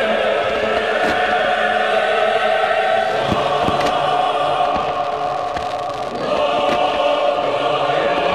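Choir singing long, held chant-like chords, shifting to a new chord after a brief dip about six seconds in.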